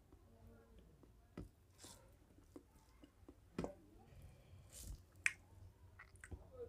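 Faint wet squishes and scattered soft clicks of a hand mixing rice with mutton curry on a steel plate.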